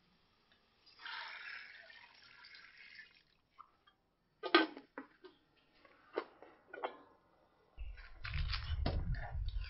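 Water poured into a large aluminium cooking pot of seasoned chicken, then the metal lid clanks down onto the pot, the loudest sound, followed by a few lighter knocks. Near the end the pot is boiling over the burner: a low rumble with scattered bubbling clicks.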